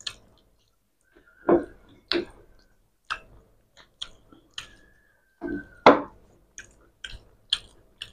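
Two people eating curry and rice with their hands: wet chewing with a string of short mouth smacks and clicks at an uneven pace, two of them louder, a little after the start and about six seconds in. A faint thin whistle-like tone comes twice.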